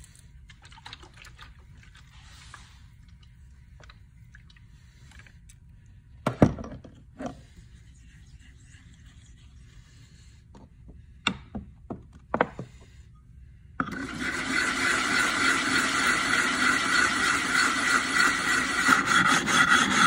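A few knocks and clicks, then a steady, loud scraping starting about two-thirds of the way in. The scraping is a flat lapping plate rubbed across a wet whetstone to flatten its surface.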